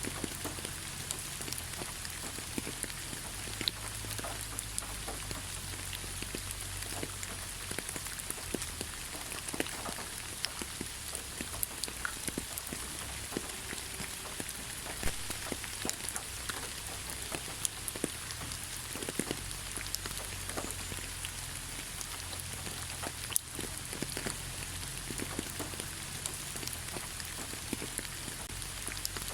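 Gentle rain falling on leaves: a steady soft hiss with many scattered individual drops ticking through it.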